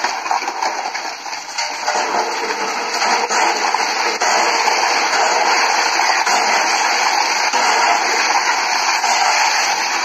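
River water rushing through a culvert whose mouth is partly blocked by a heap of piled rocks: a loud, steady rush.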